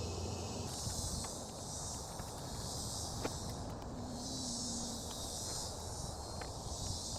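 A steady, high-pitched chorus of insects, swelling and fading every second or so, with a few faint clicks and taps from handling a car part.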